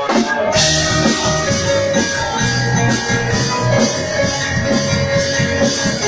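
Live band playing a rock song on electric guitars and keyboard, heard from among the crowd.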